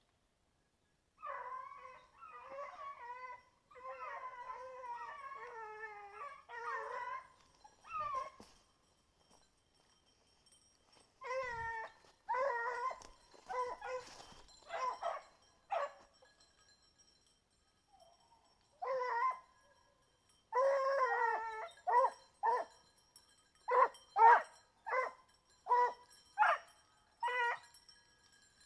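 A young Griffon bleu de Gascogne hound baying: a few long wavering howled calls, then a string of short separate bays, coming about one a second near the end.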